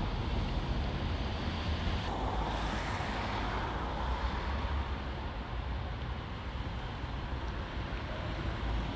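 Wind buffeting the microphone outdoors: an uneven low rumble under a steady rushing noise.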